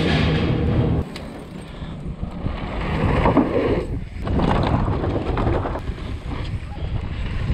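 Canyon Torque mountain bike rolling fast over wooden boardwalk planks, the tyres clattering and rumbling over the boards, with wind buffeting a GoPro's microphone. Music cuts off about a second in.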